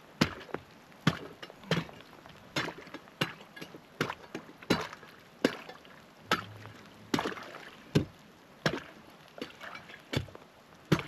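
Ice being chopped open by hand: steady, even blows of a chopping tool into pond ice, about one every 0.7 seconds, cutting down to a sprung beaver trap.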